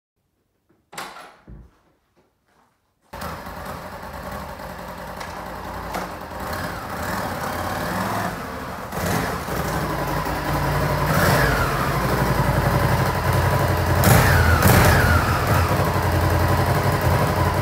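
Honda VTR1000 Firestorm's 1000cc V-twin engine running from about three seconds in and getting louder, revved briefly twice, about eleven and fourteen seconds in.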